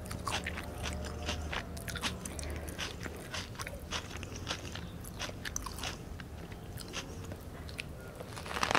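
Close-miked eating sounds of a Vietnamese fresh spring roll in rice paper: scattered soft mouth clicks of chewing, then a louder, crunchy bite into the roll near the end.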